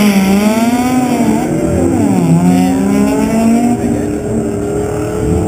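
Two drag-racing cars launching from the line and accelerating hard down the strip, their engine pitch climbing and then dropping back at gear changes about two seconds in.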